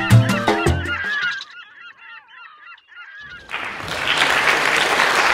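Lively Latin-style intro music that stops about a second in, then a short quiet stretch with faint chirps. An audience starts applauding about three and a half seconds in.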